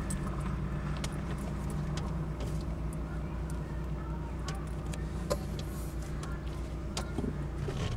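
Steady low engine and road hum of a car, heard from inside its cabin, with scattered light clicks.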